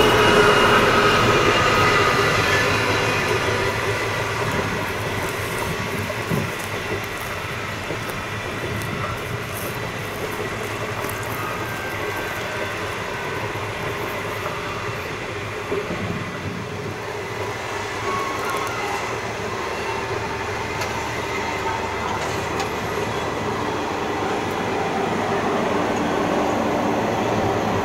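Long stainless-steel passenger train rolling past at speed: a steady rumble of carriage wheels on the rails, with faint clicking over rail joints. The hum of the departing diesel-electric locomotives fades over the first few seconds.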